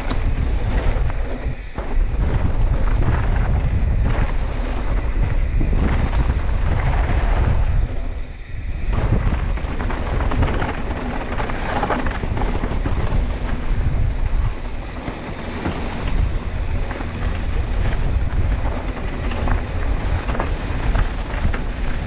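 Wind buffeting the camera microphone with the rumble of mountain bike tyres on a dirt and gravel trail during a fast downhill run. The noise drops briefly twice, just before two seconds in and around eight seconds.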